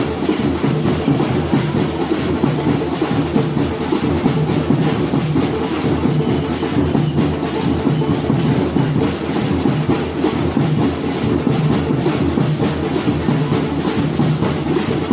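Batucada percussion ensemble playing a dense, continuous samba rhythm on drums.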